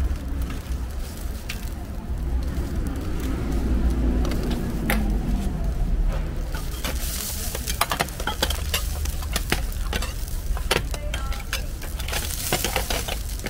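Hotteok sizzling on an oiled flat griddle, with sharp metal clicks and clanks as stainless-steel presses and dome lids are handled, coming thick and fast from about halfway on. A steady low hum runs underneath.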